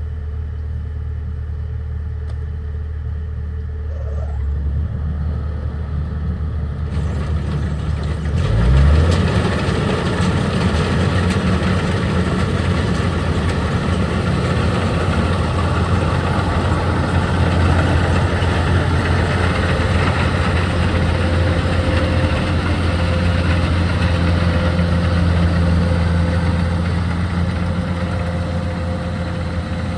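Kubota 105X combine harvester's diesel engine running steadily. About seven seconds in a loud rushing noise joins and the engine revs up briefly, then it runs on louder and steady under working load.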